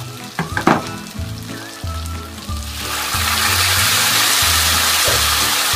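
A clink about half a second in, then ladled pasta cooking water hits the hot oil in a frying pan of broccoli and cherry tomatoes and bursts into a loud, steady sizzle from about three seconds in. Background music plays underneath.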